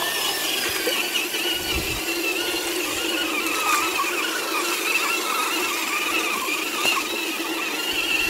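Whine of a scale RC Land Cruiser 80 crawler's electric motor and gearbox, a steady high whine that wavers slightly with the throttle as it drives through a muddy, water-filled rut.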